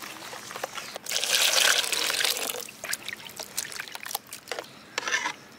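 Water poured into an aluminium bowl of cut goat lung pieces, a steady rush lasting about a second and a half, then hands swishing and squeezing the pieces in the water to wash them, with wet splashes and a short louder splash near the end. At the start, hands squelch the wet lung pieces as turmeric is rubbed in.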